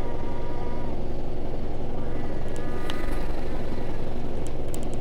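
Washing machine with its drum spinning fast: a steady rumble with a high whine that fades out about a second in and returns briefly in the middle, and a few light ticks near the middle and the end.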